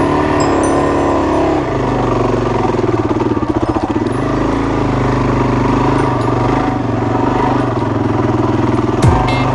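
Suzuki DRZ400's single-cylinder four-stroke engine running while the bike is ridden along a dirt trail, its pitch rising and falling with the throttle.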